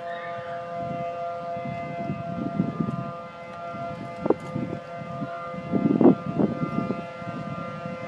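Outdoor tornado warning siren sounding a steady tone, held at one pitch. A few low bumps on the microphone cut across it, the loudest about six seconds in.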